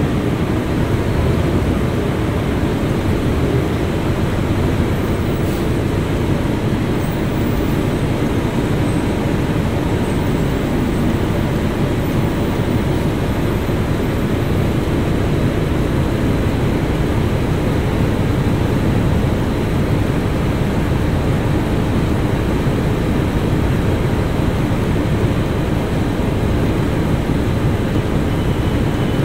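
Steady cabin noise of an RTS transit bus under way: a low engine drone mixed with road noise, heard from inside the empty bus.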